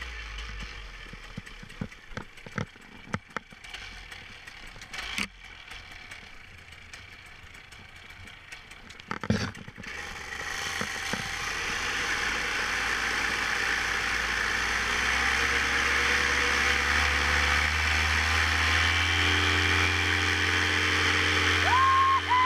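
Scattered knocks and clicks of gear being handled. Then, from about ten seconds in, a two-stroke paramotor engine running, growing louder over several seconds and then holding steady.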